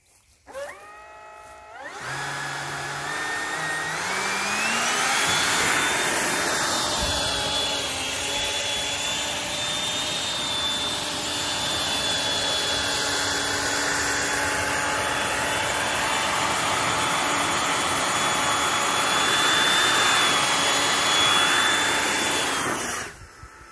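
Battery-powered motors and propellers of a homebuilt cylindrical drone spinning up with a whine that rises in pitch, then running at a steady high whine over a rush of air while it hovers. The sound cuts off abruptly near the end as it lands.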